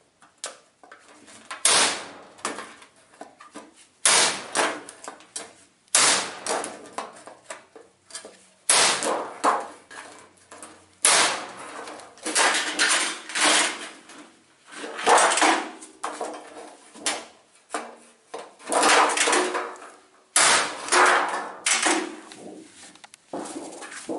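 Hammer blows on a homemade hole punch made from a car engine valve, punching holes through 1 mm zinc sheet: about a dozen sharp strikes, roughly one every two seconds, each followed by a brief metallic ringing clatter of the sheet.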